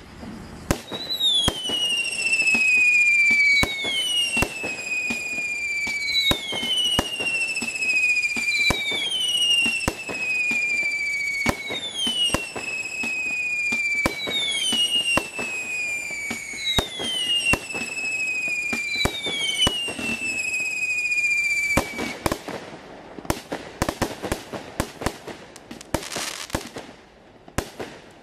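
Standard Fireworks 'Interstellar' single-ignition firework cake firing shot after shot. Each shot carries a falling whistle, about one every two and a half seconds, among sharp bangs. For the last several seconds the whistles stop and a quicker run of cracks and hissing takes over.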